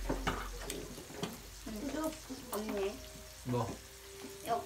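Meat sizzling on a hot grill pan, with several sharp clinks of a fork and chopsticks against the pan and dishes.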